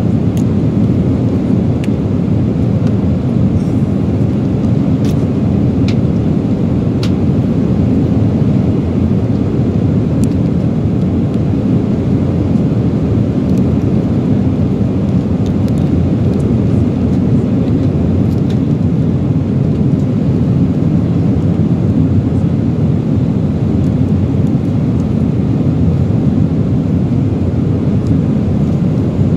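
Steady in-flight cabin roar of a jet airliner, deep and unchanging. A few small crackles of a plastic sauce sachet being torn open and squeezed come through in the first part.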